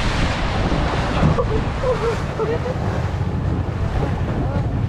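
Wind buffeting the microphone and water rushing past a moving boat, with the boat's motor running low underneath.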